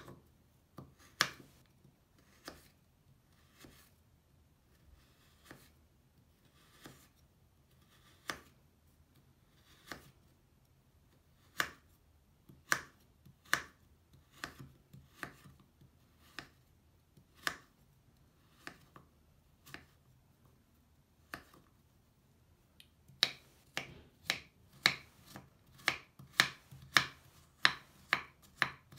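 Steel knife cutting through a crumbly bubble bar and hitting a wooden cutting board. Single sharp cuts come a second or more apart, then in the last six seconds the chopping speeds up to about two strokes a second and grows louder.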